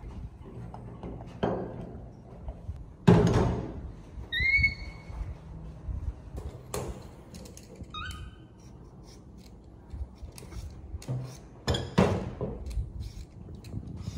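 Kitchen clatter: dishes and utensils being handled, several sharp knocks with the loudest about three seconds in, and a few short high squeaks in between.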